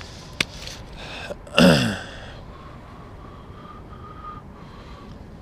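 A sharp click about half a second in, then a man's short wordless vocal sound, like a grunt or gasp, about a second and a half in, followed by a steady low hiss.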